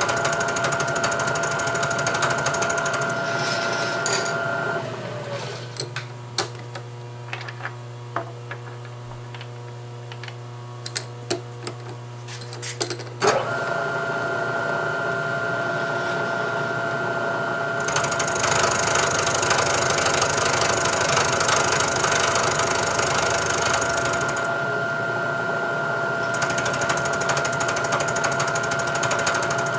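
Milling machine spindle running with a steady whine while an end mill cuts a flat on a steel bolt's square head, the cut adding a hiss. About five seconds in the spindle winds down, a few scattered clicks and knocks follow, and after about thirteen seconds it starts again abruptly, with the cutting hiss returning twice after that.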